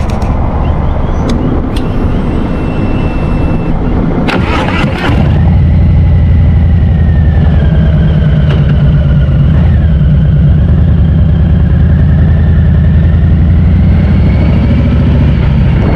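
Harley-Davidson V-twin engine running. About five seconds in, after a few sharp clicks, it gets louder and holds steady, with a faint wavering whistle above it.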